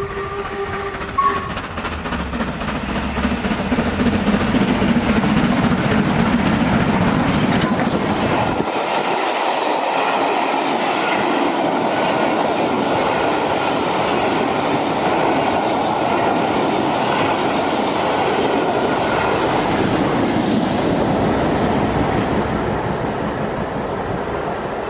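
LMS Black Five 4-6-0 steam locomotive 44932 and its passenger train passing at speed. Its steam whistle dies away at the start, with a short extra toot about a second in. Then comes a long, loud, steady rumble and clatter of the train going by.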